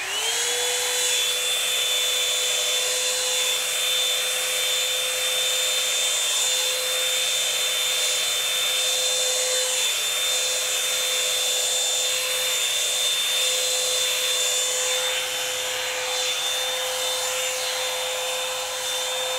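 Revlon round brush blow dryer switched on, its motor quickly whining up to speed and then running steadily with a constant rush of air and a high steady whine.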